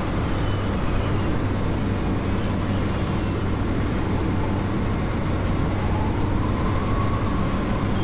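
Bushcat light sport airplane in flight: the steady drone of its engine and propeller mixed with rushing wind noise.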